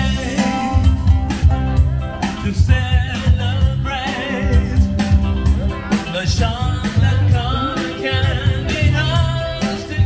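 A band playing a song: a singer over guitar, bass and drums with a steady beat.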